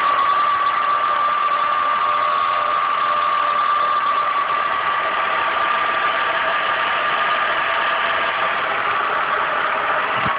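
2001 Ford Escape V6 engine idling with a steady, high-pitched whine over a hiss, the whine holding one pitch throughout. The owner hears this unexplained noise every time the engine is started.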